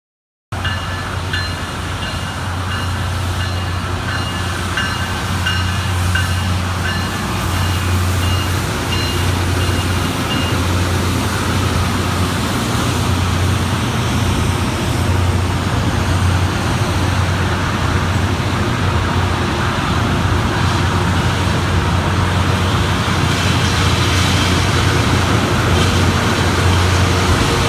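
Loram rail grinder grinding the rail: a loud, steady grinding rush over a low engine hum, slowly growing louder. A high repeating tone pulses over it for the first ten seconds or so.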